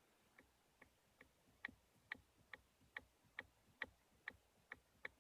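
Rhythmic tapping: short, sharp knocks a little over two a second, evenly spaced, faint at first and clearly louder from about a second and a half in.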